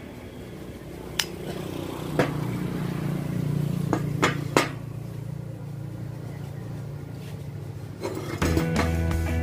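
Steel pipe pieces knocking and clinking against a steel welding table as they are handled, several sharp knocks over a steady low hum. Rock-guitar music comes in near the end.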